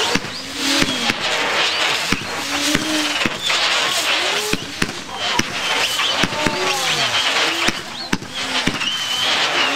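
Several consumer fireworks whistling at once, with overlapping whistles that glide up and then down in pitch over a steady hiss of burning pyrotechnics. Sharp cracks and pops come throughout.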